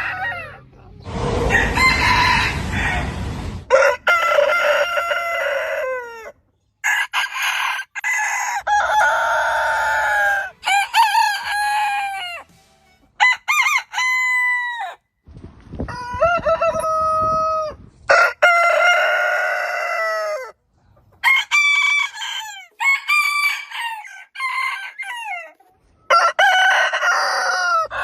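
Roosters crowing, many crows one after another at different pitches. Each crow starts and stops abruptly, and a harsher, noisier crow comes about a second in.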